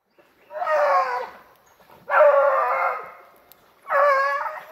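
Hunting dog baying three times, each a long drawn-out call of about a second with a slight fall at the end: a dog giving tongue on the scent of a paca that has taken to the water.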